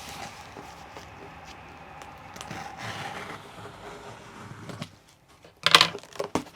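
A parcel being handled: soft rustling of packaging, then a short, loud crackle or rip of paper or tape near the end, followed by a smaller one.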